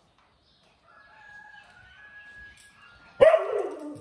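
Faint steady tones, then near the end a sudden knock and a loud animal call that falls in pitch.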